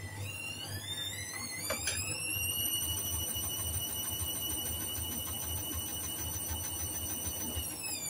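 Hoover front-loading washing machine's drum motor whining as it speeds up over about two seconds, holding a steady high whine with suds in the drum, then starting to wind down near the end. A low, uneven rumble from the turning drum runs underneath.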